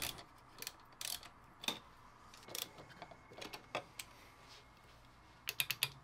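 Scattered light clicks and taps of a 3D printed plastic part being handled and set onto an aluminium extrusion frame, with a quick run of small clicks near the end.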